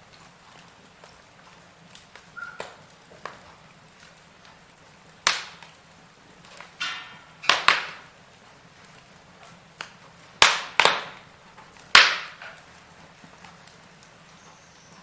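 Wood fire crackling in a fireplace: scattered small crackles and a handful of sharp, loud pops at irregular intervals, the loudest about five, seven and a half, ten and a half and twelve seconds in, over a faint steady hiss.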